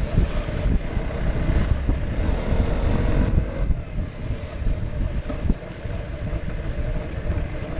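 KTM Duke motorcycle on the move on a wet road: wind rushing over the microphone on top of the engine running. The level eases off about five and a half seconds in.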